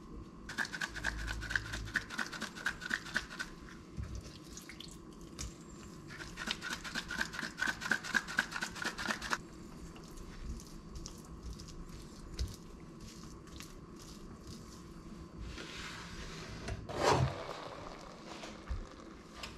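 Hand-twisted spice grinder grinding over a raw chicken breast in two runs of fast, even clicking, each a few seconds long. Then soft handling as gloved hands rub the seasoning into the meat, and a brief rush of noise with a single knock near the end.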